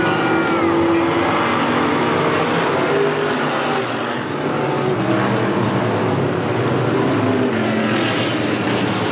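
A pack of vintage modified dirt-track race cars running around the track, several engines sounding together at once, their pitches shifting as the cars go by.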